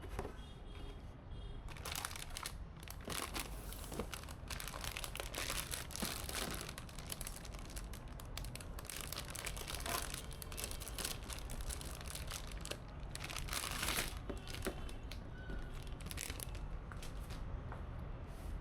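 Packaging being handled by hand, with irregular bursts of crinkling and rustling that are busiest in the first two-thirds and thin out after about fourteen seconds.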